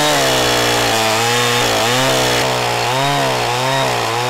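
Petrol chainsaw running at full throttle and cutting down through a log, its pitch dipping and recovering again and again as the chain bites into the wood. A wedge driven into the kerf keeps the bar from pinching, so the saw cuts right through without jamming.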